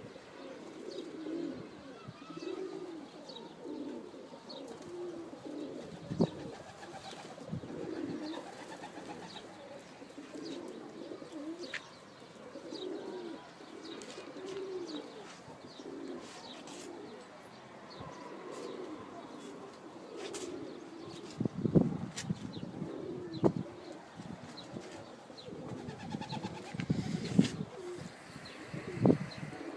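Several pigeons cooing over and over, a steady run of low arched coos about one a second, with faint higher chirps. A few sharp knocks or thumps come in, the loudest about two-thirds of the way in and near the end.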